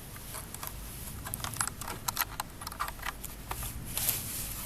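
Irregular light clicks and small scrapes of a GPS antenna and its cable being handled and fitted into an opened Panasonic Toughpad FZ-G1 tablet, clustered in the middle and again near the end.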